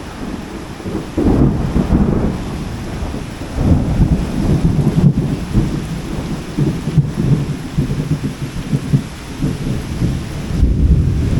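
Heavy rain falling steadily while strong wind gusts in irregular, loud low surges every second or two, buffeting the microphone.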